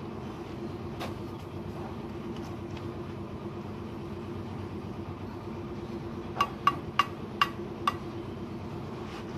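Five quick, sharp taps with a short ringing note, a bricklayer's trowel tapping red bricks into place on a wall, coming a little past the middle over about a second and a half. A steady low hum runs underneath.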